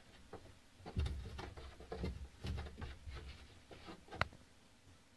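A cat working at a closed interior door from the other side, the door rattling and knocking in its frame in a quick irregular run of knocks for about three seconds, ending with one sharp knock about four seconds in.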